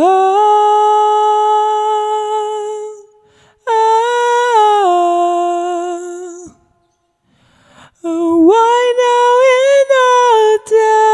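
A man singing wordless "ah" vocalise a cappella in a high voice: two long held notes, each sliding down at its end, then after a short pause a louder, wavering phrase that carries into the next line.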